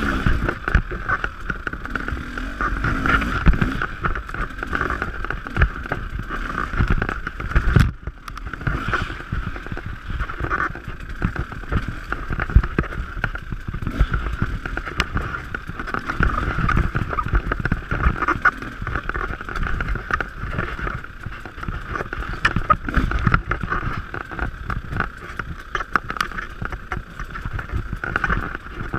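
Dirt bike engine running on a rough woodland singletrack, its loudness rising and falling with the throttle, with frequent knocks and rattles as the bike bounces over the uneven ground.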